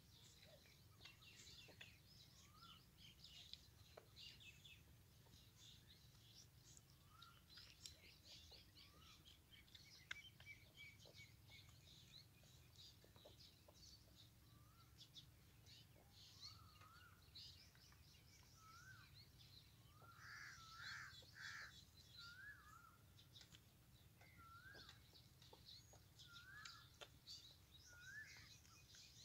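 Faint birdsong: many small birds chirping, with a short rising call repeated every second or two through the second half and a louder cluster of calls about two-thirds in.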